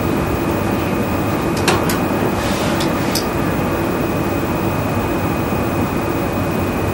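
Steady hiss and hum of room noise with a thin high whine, and a few sharp clicks about two to three seconds in.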